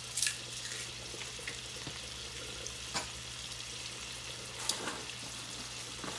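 Sliced onions, tomatoes, bell peppers and thyme sautéing in oil in a stainless steel pan: a steady sizzle, with a few light ticks.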